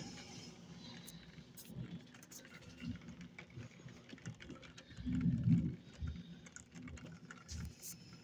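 Rain pattering during a storm, with scattered irregular ticks of drops. About five seconds in comes a brief low rumble, the loudest sound.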